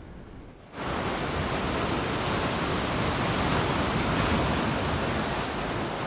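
Ocean surf breaking and washing over a rocky shoreline. A muffled rush cuts off abruptly under a second in, and a loud, steady hiss of breaking whitewater follows.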